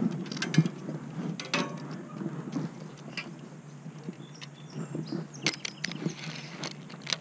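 Handling noise from fishing gear: scattered clicks, taps and rattles as rods and a spinning reel are handled, the reel handle being turned and folded, with a cluster of sharp clicks about five and a half seconds in.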